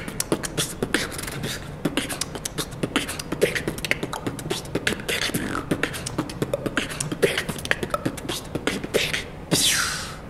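A solo human beatboxer performing a fast beatbox pattern: rapid vocal clicks, hi-hat-like hisses and low kick-drum thuds, ending with a drawn-out hiss that sweeps down in pitch.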